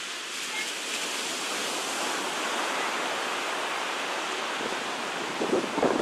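Surf on a sandy beach: small waves breaking and washing up the shore in a steady rush. Near the end, gusts of wind buffet the microphone with a few louder, low rumbling bursts.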